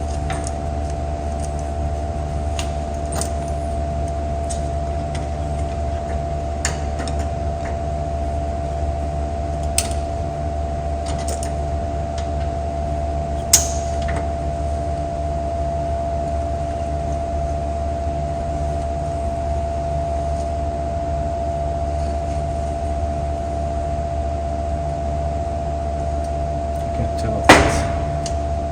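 A steady low machine hum with a constant higher tone runs throughout. Over it come a few sharp metallic clicks and clanks from hand work on a car window regulator, as its spring is being released. The loudest clank comes near the end, and another comes about halfway through.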